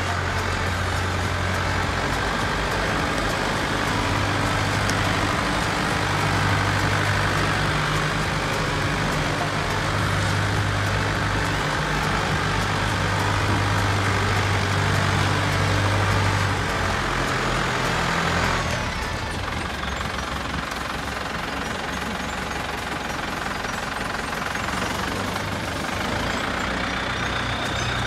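Massey Ferguson MF4708 tractor's four-cylinder diesel engine running steadily as the tractor is driven at low speed; about two-thirds of the way through the engine note eases off and gets a little quieter.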